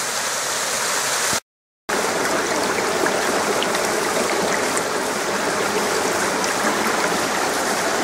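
Small mountain waterfall and the rocky stream below it rushing steadily. The sound cuts out completely for about half a second, at an edit, then the water resumes.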